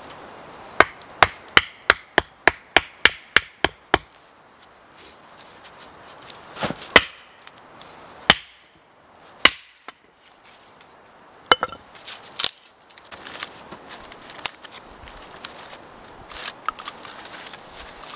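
Axe splitting firewood on a chopping block: a quick run of about ten light knocks, roughly three a second, then a few single harder blows a second or more apart. Near the end come smaller knocks and rustles of split wood pieces being handled and set down.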